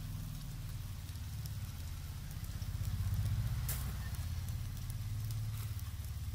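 A low, fluttering rumble that swells around the middle, over faint crackling from chicken wings grilling on a charcoal grill, with one sharper crack a little past halfway.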